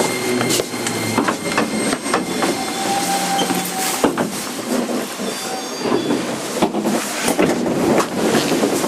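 JR 205 series 5000-subseries electric train running, heard from inside the motor car: steady rolling noise with sharp clicks from the wheels over rail joints and short thin whining tones from the drive coming and going.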